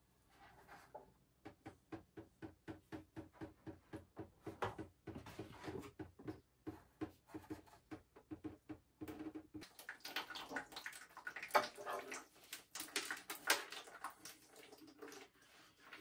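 Water running out of an opened copper pipe into a plastic bucket as the pipes are drained. At first it drips about three times a second, then turns to a heavier, irregular spattering about ten seconds in.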